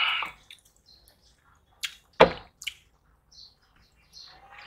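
Wet, sticky eating sounds of rice and fish curry being mixed and eaten by hand from steel plates: scattered squelches and small clicks, with a sharp wet smack a little over two seconds in.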